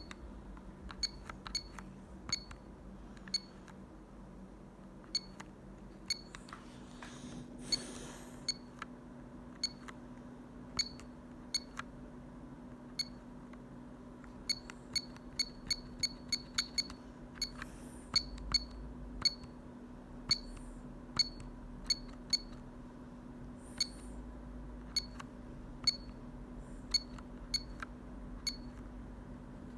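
Short key beeps from the keypad of a Telecom Italia Tech New Master telephone as its buttons are pressed one after another, irregularly and sometimes in quick runs. A few brief rustles of handling come through, and a faint steady hum starts about a quarter of the way in.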